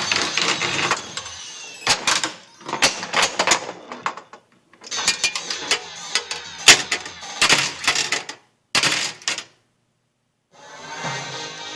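Bride of Pinbot pinball machine with a sound fault, giving irregular bursts of clicking and crackling that cut off suddenly to dead silence twice.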